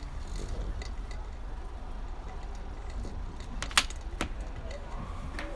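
A few sharp clicks or clinks over a steady low outdoor rumble. The loudest click comes a little over halfway through, and two softer ones follow within about a second.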